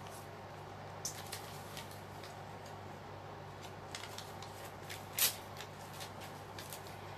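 Paper rustling and crinkling as collage cuttings and notebook pages are handled, in short scattered bursts with one louder rustle about five seconds in.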